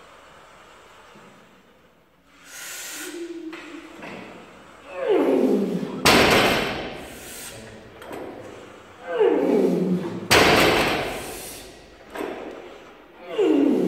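A weightlifter's loud, forceful breathing and roaring grunts while he sets up over a heavy barbell. Groans fall in pitch, each followed by a sudden loud blast of breath, about every four seconds.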